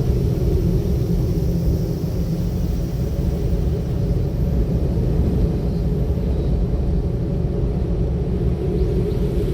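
A moving car's road and engine noise: a steady low rumble with no sudden sounds.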